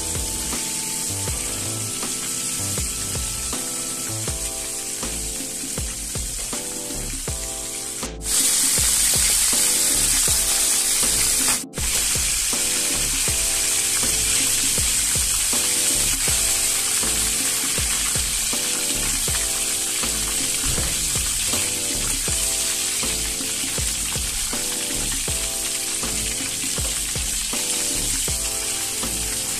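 Breaded chicken pieces deep-frying in hot oil in a wok: a steady, hissing sizzle. The sizzle is louder for about three seconds in the middle, starting and stopping abruptly.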